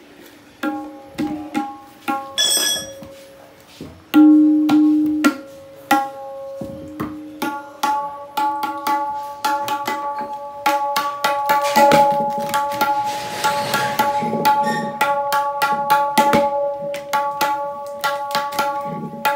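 Right-hand tabla (dayan) struck again and again with the fingers. Each stroke rings at one steady pitch. The strokes are sparse and separate at first, then come quickly from about halfway. It is a newly fitted drum being checked against a tuner while it is tuned with a hammer at the rim.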